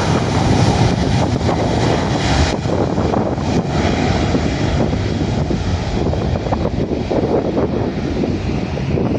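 Jet airliner's engines at takeoff thrust: a loud, continuous rumble with a hissing top, the hiss thinning after about two and a half seconds while the low rumble goes on.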